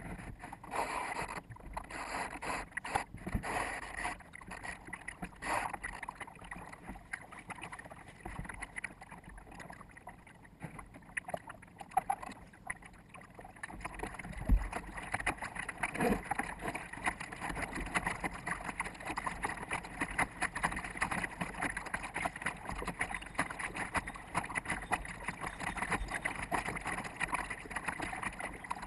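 Water splashing and rushing along a small sailboat's hull, with wind on the microphone, played back at four times normal speed. A couple of sharp knocks stand out about halfway through.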